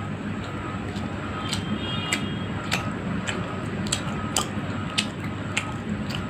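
Close-up chewing of fried fish, with wet mouth and lip smacks repeating a little under twice a second over a steady low background hum.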